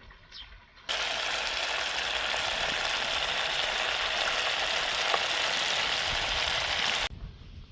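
Steady sizzling hiss of food cooking in a pan. It starts abruptly about a second in and cuts off just as suddenly near the end.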